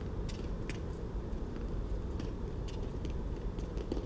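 Steady low background rumble with about half a dozen faint, scattered clicks.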